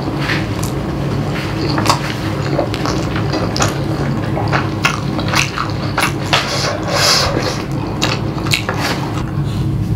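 Close-miked eating: noodles slurped from chopsticks and chewed wetly, with many short mouth clicks and smacks. There is a longer slurp about seven seconds in, over a steady low hum.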